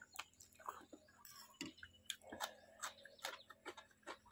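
Close-up chewing of a mouthful of noodles: small wet clicks and smacks of the mouth, several a second and unevenly spaced.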